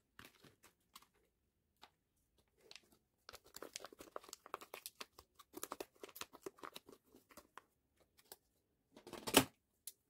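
Packaging being handled and torn open: irregular crinkling and crackling, thickest in the middle, with a louder short rip near the end.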